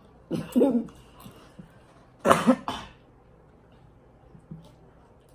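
A person coughs once, loudly, about two seconds in, after a shorter throaty sound near the start.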